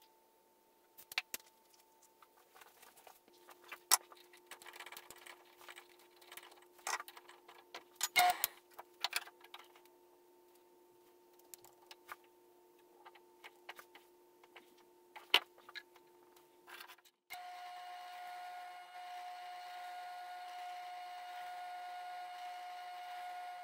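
Scattered clicks and taps of a tape measure, pencil and hand tools being handled on a workbench. About seventeen seconds in, a benchtop drill press starts running with a steady motor hum as it bores holes in a plywood board.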